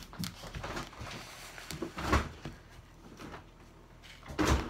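Kitchen handling noises: a few scattered knocks and thumps over a quiet room. The loudest come about two seconds in and just before the end.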